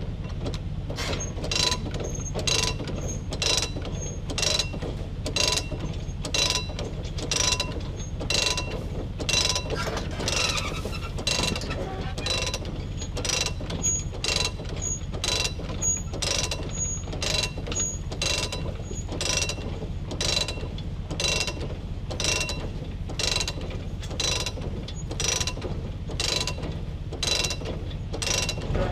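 Self-unloading forage wagon discharging grass: its ratchet-driven scraper-floor drive clicks about twice a second, each click ringing briefly, over the steady low running of the tractor engine.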